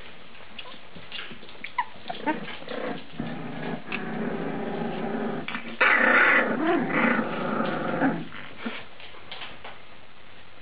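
Boxer puppies growling at each other in play, with a few short yips and whimpers at first. The growling turns loud and continuous about six seconds in and stops about two seconds later.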